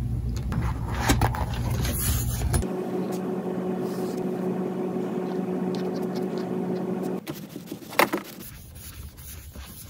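Handling noise from hands and a pen on a spiral-bound notebook, then a cloth rubbing across the page, heard through three abrupt changes in background. The middle stretch carries a steady low hum, and a sharp click comes about eight seconds in.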